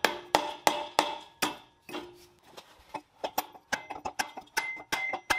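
Repeated sharp taps on metal, about two to three a second, each ringing briefly. The taps thin out and soften in the middle, then come back with a higher ring near the end.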